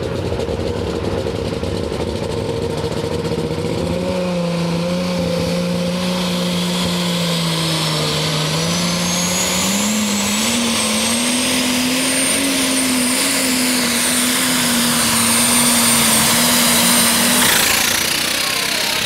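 Turbocharged diesel super/pro stock pulling tractor under full throttle on a pull: the engine note climbs as it loads up against the sled, with a high turbo whistle that rises steeply and holds. Both drop away about a second and a half before the end as the throttle comes off.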